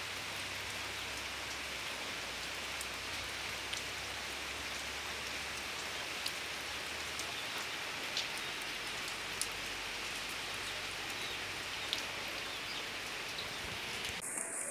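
Steady rain falling, with scattered sharper ticks of single drops hitting nearby surfaces.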